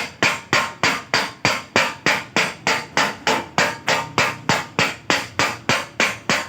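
Hand hammer beating a Honda car's sheet-metal body panel during dent repair, in a steady even rhythm of about three ringing strikes a second.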